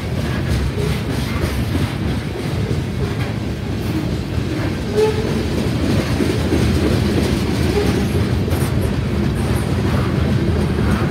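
Covered hopper cars of a freight train rolling past: a steady rumble of steel wheels on the rails with clickety-clack.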